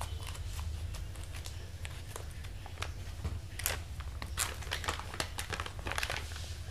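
Clear plastic seed pouch crinkling and rustling as it is cut open with scissors and handled, in short scattered rustles and clicks over a steady low hum.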